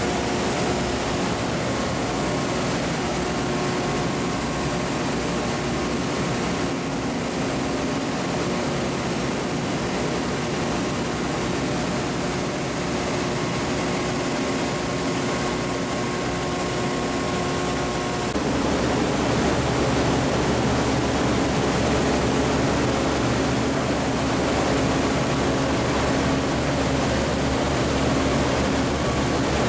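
Steady industrial machinery noise: a constant rushing hum with a few faint steady tones. About two-thirds of the way through it changes abruptly, becoming a little louder and deeper with different tones.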